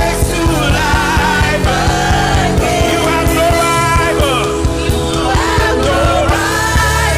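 Gospel worship music: sung voices holding long, bending notes over a band with a steady drum beat and bass.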